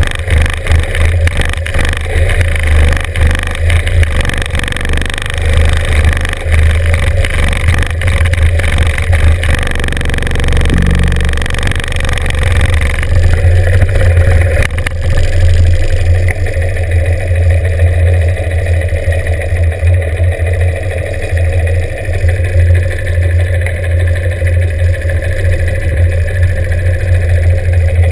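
Norton 750 Commando's parallel-twin engine running loud and low as the bike rolls slowly, its tone changing and settling about halfway through.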